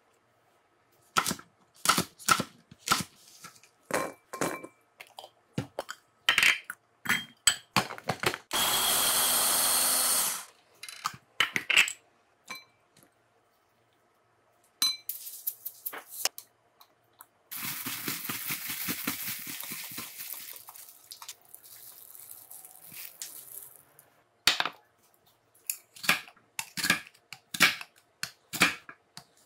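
Kitchen prep sounds: a run of sharp taps and clicks from food, utensils and containers handled on a wooden cutting board and a glass bowl. They are broken by a loud steady whirr lasting about two seconds near a third of the way in, and by a fading hiss of several seconds past the middle.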